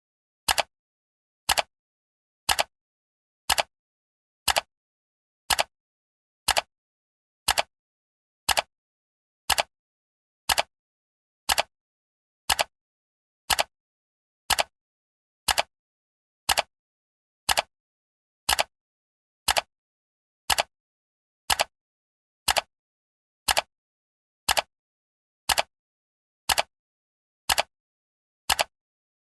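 Clock-style ticking sound effect of a countdown timer: sharp, identical ticks at exactly one per second, with silence between them.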